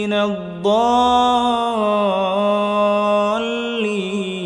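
A reciter's voice chanting the Quran in melodic tajwid style, drawing out the word "al-mukadhdhibin" in one long, gently ornamented note that sustains for about three seconds.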